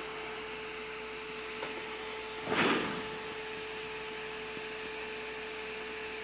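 Small 12-volt cooling fan running with a steady hum, with a brief burst of noise about two and a half seconds in.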